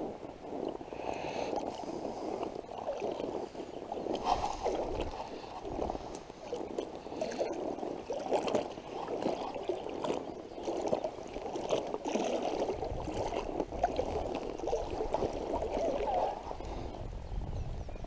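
Water sloshing and gurgling against a float tube as it is moved through the lake, uneven and continuous, with some wind rumble on the microphone in the later part.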